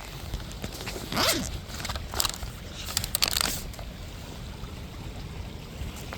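A backpack being unzipped and rummaged through: a few short rustling, zipping scrapes about a second, two seconds and three seconds in, as a drink can is taken out.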